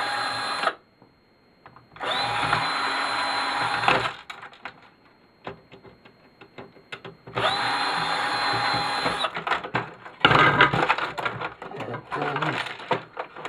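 Power drill-driver backing out screws, running in three short spins of a second or two each that rise quickly to a steady whine. Near the end, loose parts clatter and rattle.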